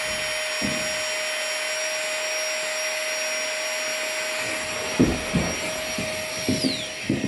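Small electric air pump running steadily as it inflates a sleeping mat: a rushing of air with a steady whine. Some handling knocks come in about five seconds in, and near the end the pump is switched off and its whine falls away.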